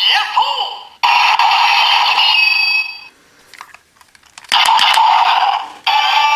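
DX Ryusouken toy sword playing its electronic sound effects and music through its small speaker in several loud bursts, with a Ryusoul (MieSoul) loaded. Around the middle there is a gap of about a second and a half, with a few faint clicks as the toy is handled.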